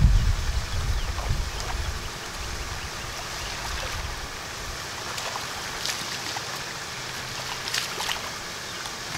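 A hooked largemouth bass splashing at the water's surface as it is reeled in to the bank, with a few sharp splashes near the end. A low rumble of wind on the microphone in the first two seconds.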